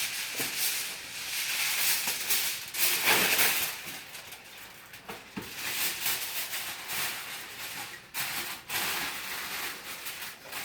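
Aluminium foil being pulled off the roll, torn and crinkled in uneven rustling spells, loudest about three seconds in.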